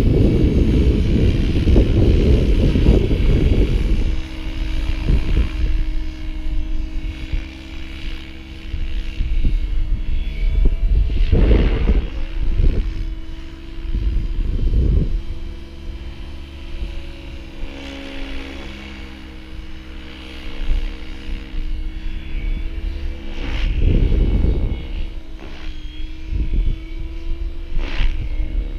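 GAUI X7 radio-controlled helicopter flying overhead: the steady whine of its rotors and motor. Wind buffets the microphone heavily for the first few seconds and again in short gusts.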